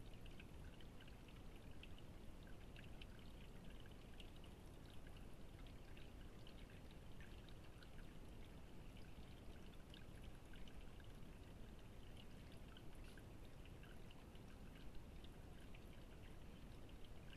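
Faint trickle of a garden water feature pouring into its bowl, with many small irregular drips and splashes.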